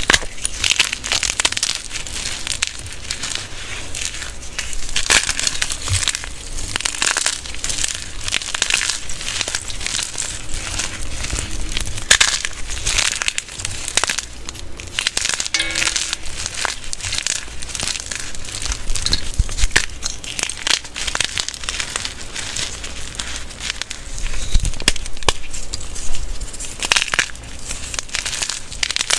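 Blocks of gym chalk crushed and crumbled between bare hands: a continuous dry crunching and crackling made of many crisp little snaps, swelling into denser bursts with each squeeze.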